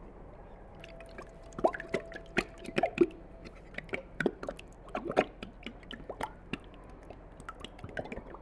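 Thick homemade yogurt plopping and glugging out of a plastic jug into a pot, in irregular wet plops.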